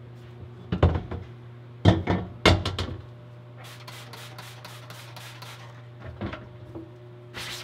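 A screen-printing screen's frame clunks a few times as it is grabbed and set against the washout booth, then a spray bottle is squirted about ten times in quick succession, some five a second, wetting the mesh with ink remover.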